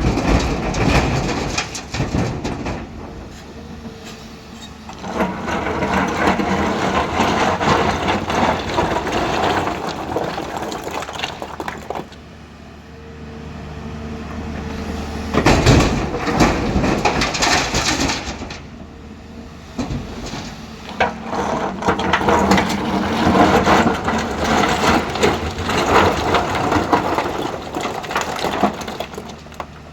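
Hyundai 215 excavator's diesel engine running steadily, with long stretches of rock scraping and clattering as boulders are loaded into a tipper truck's bed, and a loud crash about fifteen seconds in.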